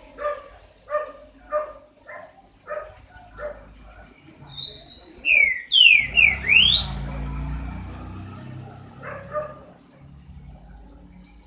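A dog barking, a run of about six short barks early on and two more near the end, with a burst of loud whistled bird calls in the middle, fast rising and falling sweeps, the loudest sound in the stretch.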